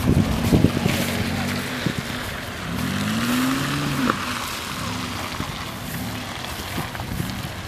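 Off-road 4x4 SUV engine running as it crawls down a muddy track. About two and a half seconds in it revs up, its pitch rising, then drops back near the four-second mark. A few sharp thumps come in the first second.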